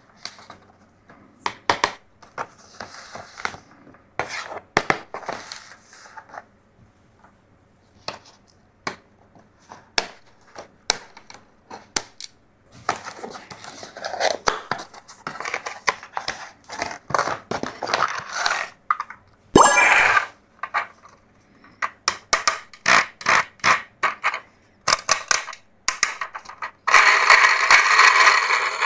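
Plastic toys and packaging being handled: many sharp clicks and taps, with scraping and crinkling between them, a brief squeak about two-thirds of the way in, and a stretch of dense rustling near the end.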